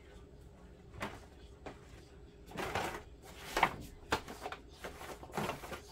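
Wet, dyed fabric being pressed and scrunched into a disposable aluminium foil pan: a handful of short rustles and crinkles of the foil and cloth, the sharpest a little past halfway.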